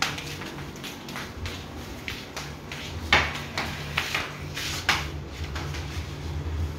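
A few sharp knocks and clatters as a tray is carried and set down on a table and shifted, the loudest about three seconds in, over a steady low hum.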